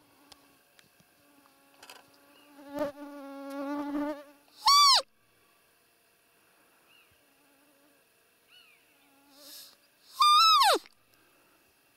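Roe deer call (a fiep lure) blown twice, each a short, loud, high squeak that rises and then falls in pitch, imitating a doe to draw a rutting buck. An insect buzzes close by about three seconds in.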